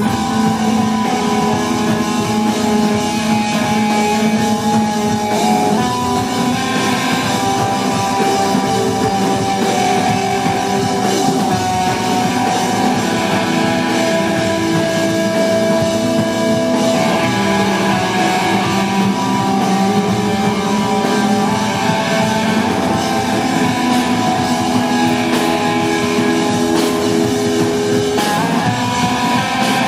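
Live instrumental post-rock band playing loud and steady: electric guitars, keyboards and drum kit together, with long held notes.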